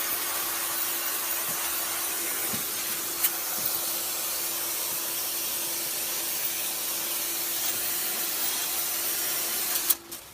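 Steady hiss of water being sprayed onto an air conditioner to clean it, with a steady hum underneath. It stops abruptly with a click near the end.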